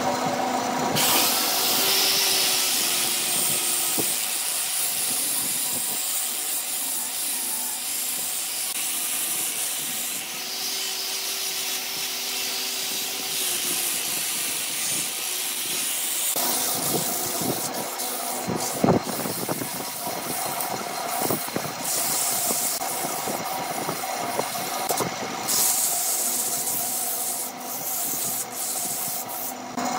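Wood lathe running with a wooden vase spinning while it is sanded: a power rotary sanding pad pressed against the turning wood, and later sandpaper held by hand, giving a steady rubbing hiss over the lathe motor's hum. The sound changes about halfway through and gains a scatter of small irregular clicks.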